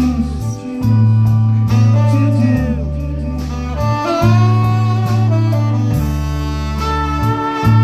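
Live band playing: deep bass notes held for a second or two at a time under a sustained, slightly sliding lead melody.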